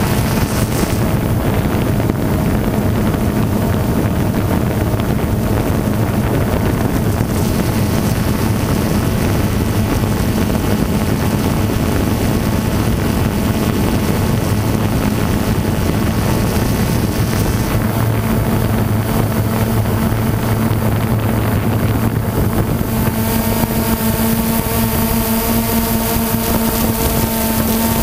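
DJI Phantom quadcopter's motors and propellers buzzing steadily, heard from the camera on board, with wind rushing over the microphone. Near the end the hiss gets brighter and higher humming tones join in.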